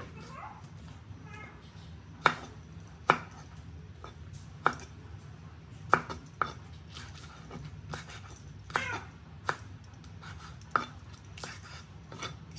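Steel cleaver chopping leafy green stems on a wooden chopping board: single sharp knocks at irregular intervals, about a second or more apart, half a dozen in all.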